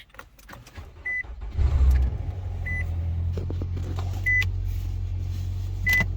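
Nissan Altima engine cranking and starting about a second and a half in, then idling with a steady low hum. Short high beeps sound four times, about every second and a half.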